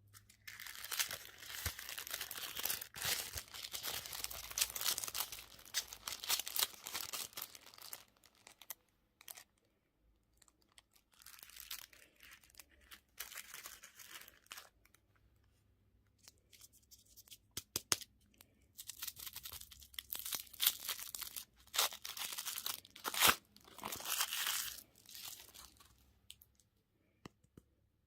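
Candy and toy wrappers being torn open and crinkled by hand, in three long stretches of crackling with short quiet gaps and a few sharp clicks.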